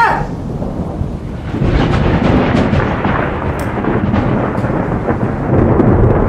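Deep, continuous rumbling of thunder from a storm, swelling again near the end.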